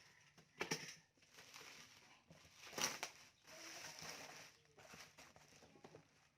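Packaging rustling and crinkling as it is handled, in a few short bursts: one about half a second in, a sharper one near three seconds, and a longer stretch just after.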